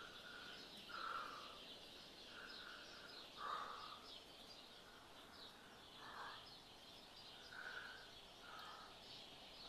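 Faint birds calling: many small high chirps throughout, with a lower, harsher call repeating at irregular intervals about every second or two.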